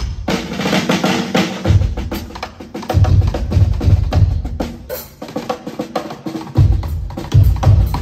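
Hybrid acoustic-electronic drum kit played in quick fills and grooves of snare, toms and cymbals. The bass drum is absent for the first second and a half, comes in heavily about three seconds in, drops out again shortly before the seven-second mark, and then comes back.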